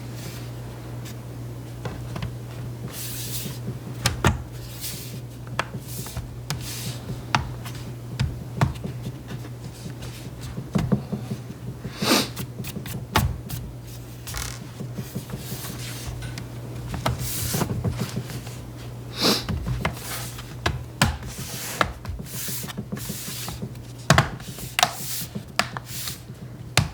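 Bottom cover of an HP Envy x360 laptop being fitted back onto the chassis: irregular clicks, taps and scraping rubs as its clips are pressed and snapped into place, over a steady low hum.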